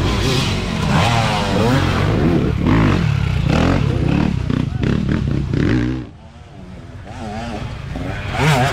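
Dirt bike engines revving hard with quick throttle blips, the pitch wavering up and down. The engine sound drops away about six seconds in, then another bike revs up near the end.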